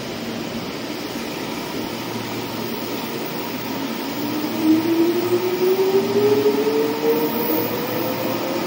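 Meitetsu electric train running through the station: a steady rumble and rush of wheels on rail, with the traction motors' whine rising steadily in pitch from about halfway through as the train picks up speed.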